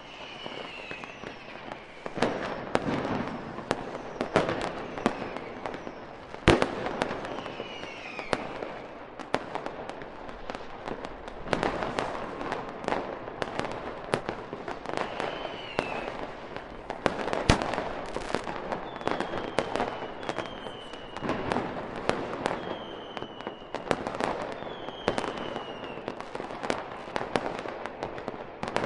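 Fireworks display: a steady run of sharp bangs and crackling shell bursts, with several short falling whistles between them. The two loudest bangs come about six and a half and seventeen and a half seconds in.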